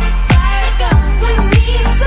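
Pop song with a steady electronic beat: a deep, pitch-dropping kick drum about every 0.6 seconds over a held bass and melody.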